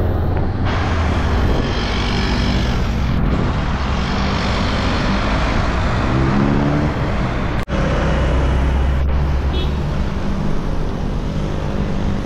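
Road traffic: motor vehicles running past on a highway, with a steady engine hum and one engine rising in pitch a little past the middle. The sound breaks off for an instant shortly after.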